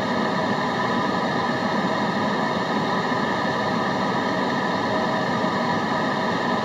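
Steady white noise, even and unchanging, with faint fixed tones running through it, played as background sound for concentration.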